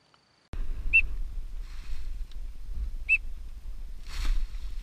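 Wind rumbling on the microphone, starting abruptly about half a second in, with two short high whistled chirps, one about a second in and one about three seconds in, and a short hissing rush near the end.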